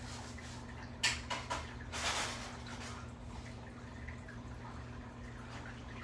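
Juvenile Nile monitor lizard chewing a toad: a few sharp wet clicks about a second in, then a short crunching rustle about two seconds in, over a steady low hum.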